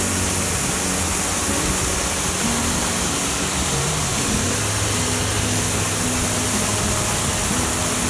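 Water falling in a curtain from a stone canal arch and splashing onto the rocky stream bed below, a steady hiss with no breaks.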